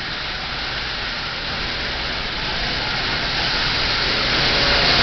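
Marx 897 toy locomotive with a 6-volt motor running along three-rail tinplate track pulling a train of cars: a steady, smooth motor hum and wheel rumble that grows louder toward the end.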